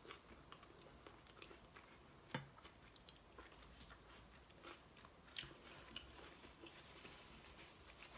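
Faint chewing of a soft chicken burrito: small wet mouth clicks throughout, with two sharper clicks about two and five seconds in.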